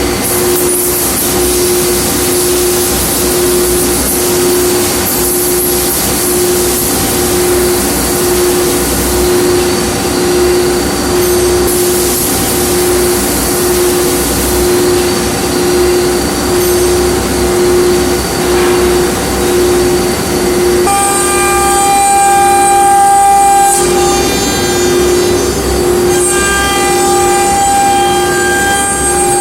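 KDT CNC nesting machining centre running: a steady hiss and a low, evenly pulsing hum. About two-thirds of the way through, a high-pitched whine with overtones comes in, breaks off briefly, then returns.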